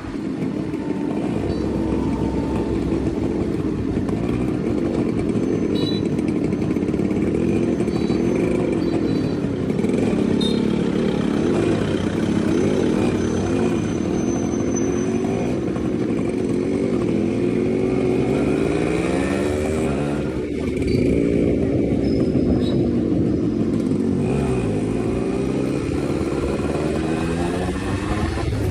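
Yamaha RX two-stroke motorcycle running on the road, its exhaust note rising and falling as the throttle is opened and eased off.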